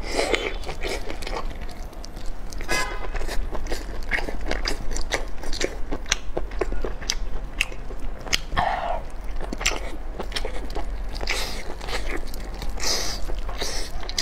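Close-miked eating of braised octopus: biting and chewing, with many sharp wet mouth clicks and smacks.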